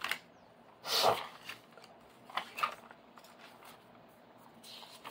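Pages of a spiral-bound notebook with 63 g/m² ruled paper being handled and turned by hand. There is a sharp paper rustle about a second in, then a few softer rustles and a faint page swish near the end.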